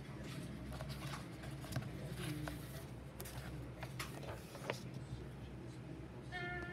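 Papers and a plastic binder being handled: pages rustling, with scattered light taps and clicks.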